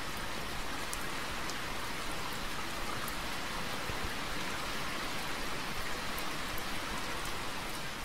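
Steady hiss like falling rain, with a few faint, sharp ticks scattered through it.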